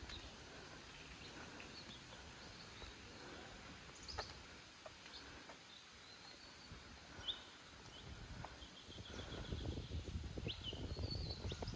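Tropical forest ambience with scattered short bird chirps and a brief rapid trill of repeated notes. A low rumble grows louder near the end.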